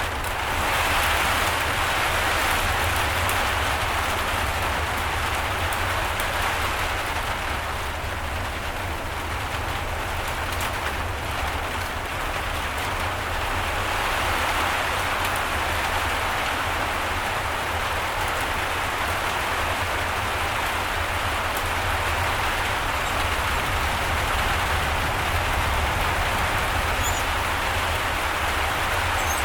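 Heavy rain falling steadily: a dense, even hiss of drops on surfaces with a steady low rumble underneath, growing slightly louder about a second in.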